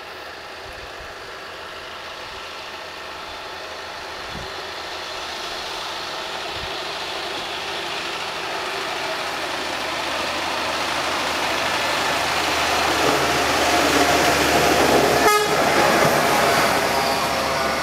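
Herzog rail defect detector truck running on the rails, its engine and wheels growing steadily louder as it approaches and passes, then starting to fade near the end. About fifteen seconds in it gives a quick toot on the horn.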